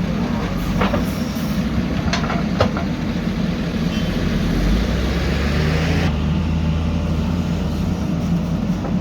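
Diesel engines of heavy earth-moving machinery running steadily, with a few sharp clanks in the first three seconds. A deeper engine note swells about halfway through, and a hissing noise cuts off about six seconds in.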